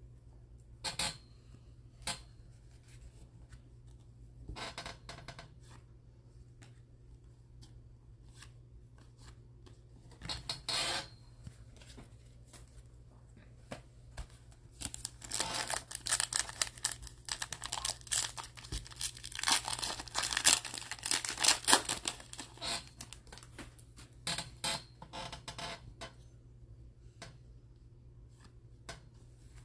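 A trading-card pack's wrapper being torn open and crinkled for several seconds around the middle, the loudest sound. Before it come a few short rustles of a card sliding into a plastic sleeve, and after it light shuffling as the cards are flipped through.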